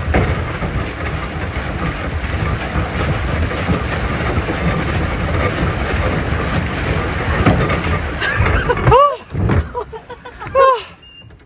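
Steady rumbling noise of wind buffeting the microphone and water churning under a pedal boat as it is pedaled across a lake. About nine seconds in the noise drops away, and a few short rising-and-falling calls are heard near the end.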